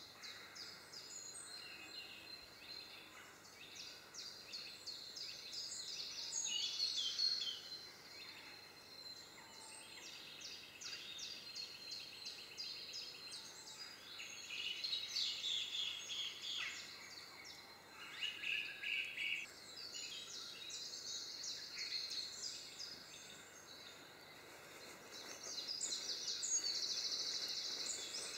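European greenfinch singing: a run of rapid twittering trills in phrases that rise and fall in loudness, with short pauses between them.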